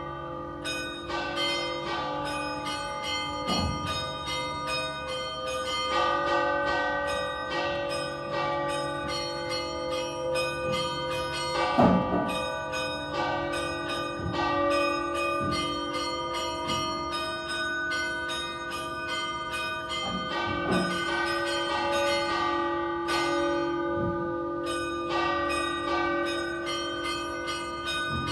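A set of three tower bells keyed to D-flat and not tuned to a scale, a large bell cast in 1878 with two smaller ones cast in 2015, ringing together in a festive peal. Strikes come in quick, overlapping succession over a continuous hum of ringing, with one especially loud strike about twelve seconds in.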